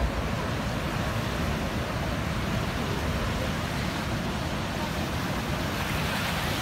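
Ocean surf breaking and washing up a sandy beach: a steady rushing noise with a low rumble underneath.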